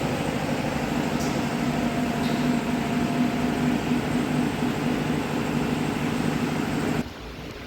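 A steady mechanical hum with a low drone that cuts off suddenly about seven seconds in.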